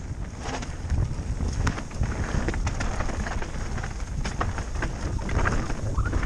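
Mountain bike riding down a dirt trail, heard from a camera on the bike or rider: wind buffeting the microphone over a steady rumble of tyres on the ground, with many short clicks and rattles as the bike goes over bumps.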